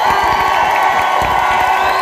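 Concert audience cheering loudly, many voices at once.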